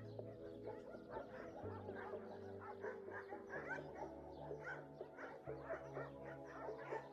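Many dogs barking and yipping in quick, overlapping short calls, faint, over soft background music with held low notes that change every second or two.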